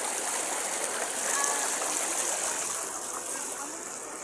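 Stream water rushing and splashing steadily, a little louder in the middle and fading near the end.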